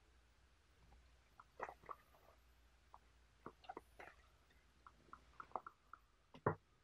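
Cardboard tea packets being handled and set down: a scatter of soft taps and small clicks, the loudest a knock near the end.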